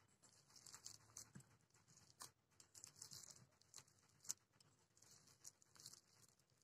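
Near silence, with faint irregular squishes and clicks of a hand mashing soft cooked semolina and potato dough in a steel bowl; one slightly louder tap about four seconds in.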